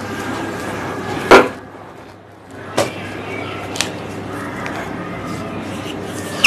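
A duster rubbing across a whiteboard, with a few sharp knocks as the duster and marker hit the board. The loudest knock is about a second and a half in, and smaller ones follow.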